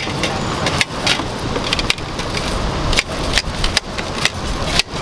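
Knife striking a cutting board in irregular, sharp knocks as fruit is cut, over a steady hum of street traffic.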